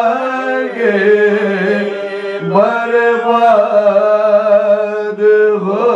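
Men chanting soz, an unaccompanied mournful elegy for Muharram, together into a microphone in long held notes that slide between pitches, with a brief break about two seconds in.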